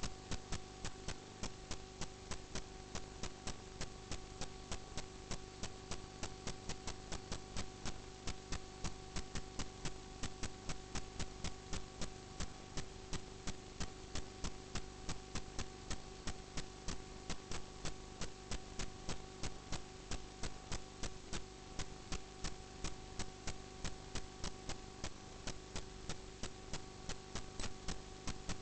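Quick, even ticking, about four to five ticks a second, over a steady electrical hum.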